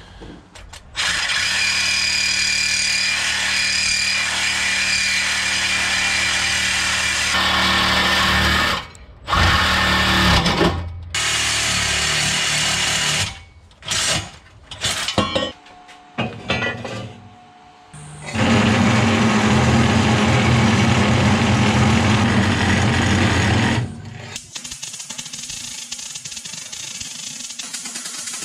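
Power tools working metal in a run of bursts, some held for several seconds at a steady motor pitch, others short and stop-start. Near the end, the quieter crackle of a MIG welder laying a bead.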